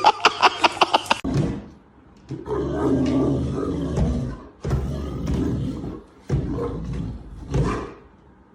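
An animal's low calls in several bursts, after a quick run of about eight sharp clicks in the first second.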